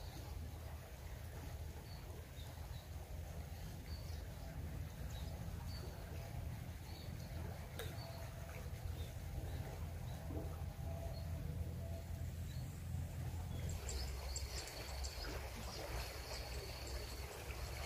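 Faint outdoor riverside ambience: a steady low rumble with scattered faint bird chirps. A thin, steady high tone joins near the end.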